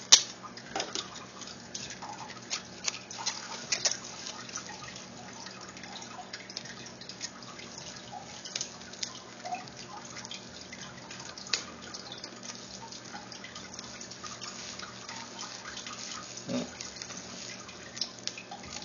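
Bubble wrap and plastic bendy straws crinkling and clicking as they are handled and folded, in scattered irregular crackles with a sharp click just after the start.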